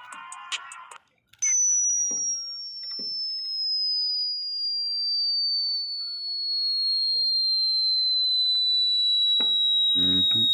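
A single high-pitched pure tone, an anti-dog repellent sound, switches on suddenly about a second and a half in and glides slowly and steadily down in pitch.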